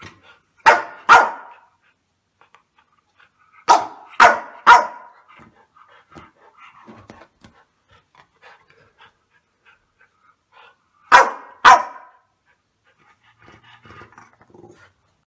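Chow chow barking at a cat: seven short, sharp barks in three bursts, two, then three, then two, with faint quieter sounds between.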